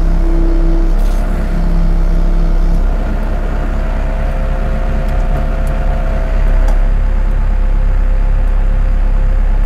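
CAT TL943 telehandler's diesel engine running steadily while the wheels are steered, with the whine of the hydraulics over it. One set of whining tones stops about 3 seconds in and a higher one about 7 seconds in, as the steering moves come to an end.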